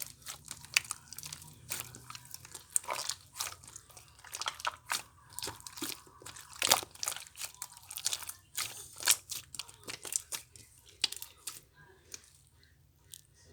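Two slimes being kneaded together by hand into a marbled slime, giving irregular sharp clicks and pops, several a second, that thin out near the end.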